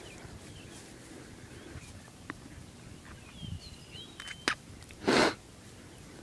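Small birds chirping in short rising and falling calls over a field's background noise. A single sharp click comes about four and a half seconds in, and just after five seconds there is a brief, loud burst of rushing noise.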